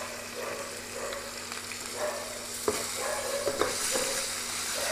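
Hot oil sizzling in a frying pan as onion, garlic and tomato fry, with a spatula stirring through them. A few sharp knocks of the spatula against the pan come a little after the middle.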